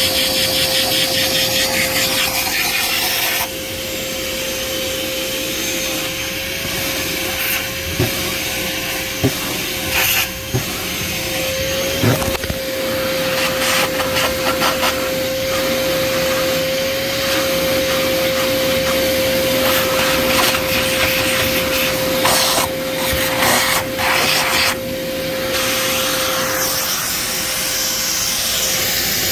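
A motor-driven tool running with a steady, unchanging whine over a hiss, with scraping and rubbing noises on and off; the whine stops near the end while the hiss carries on.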